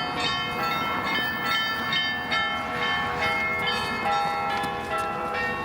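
Church bells ringing: several bells struck in quick succession, their tones overlapping and ringing on.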